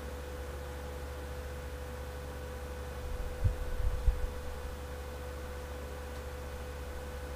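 Steady low hum with a faint steady higher tone above it, and a few soft low thumps about three to four seconds in.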